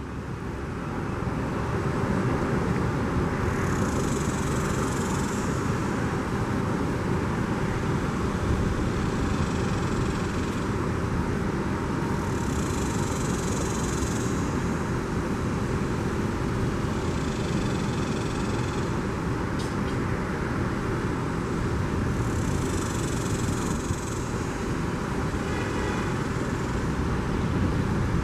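Steady road traffic noise at a street intersection, with vehicles swelling past about every nine seconds.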